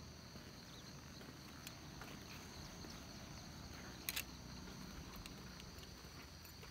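Faint, steady high-pitched drone of insects in the surrounding vegetation, with one brief sharp click about four seconds in.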